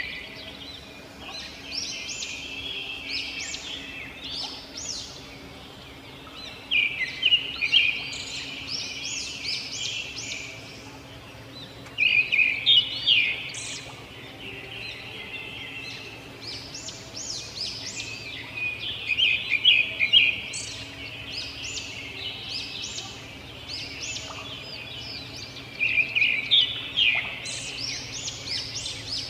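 Robins singing and chirping. A fast run of repeated notes is followed by a jumble of higher chirps, and the phrase comes back every six or seven seconds. A faint steady hum sits underneath.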